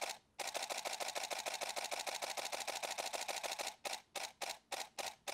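Canon 5D Mark IV DSLR shutter and mirror firing in a rapid continuous burst of evenly spaced clicks. Near the end the shots come slower and further apart: the RAW buffer has filled.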